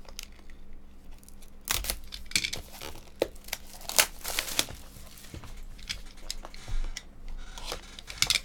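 Plastic shrink wrap being slit with a box cutter and pulled off a cardboard trading-card box: crinkling and tearing in short bursts, with scattered clicks.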